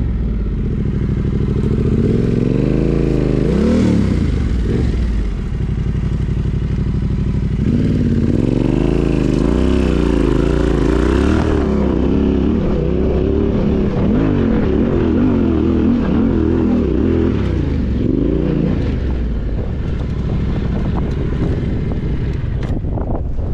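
Off-road motorcycle engine running close by and revved up and down repeatedly in first gear, the pitch swelling and dropping several times, as a bike stuck on a steep loose climb is powered and worked free.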